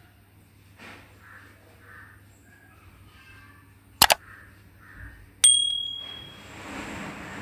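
Kitchen sounds: two sharp clicks about four seconds in, then a metal utensil or pan striking with a bright ringing clang, followed by a soft hiss.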